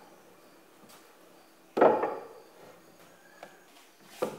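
Planed timber boards knocked down against a wooden workbench as they are arranged: a loud wooden knock about two seconds in, and a sharper, shorter one near the end.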